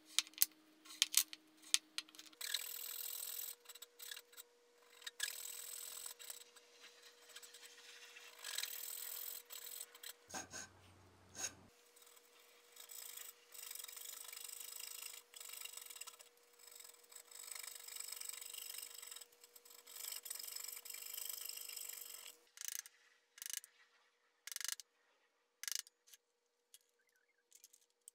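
Coping saw cutting out the waste between dovetail pins, a long run of quick rasping saw strokes in wood, broken briefly about ten seconds in. A few sharp clicks come before the sawing starts, and scattered taps follow it near the end.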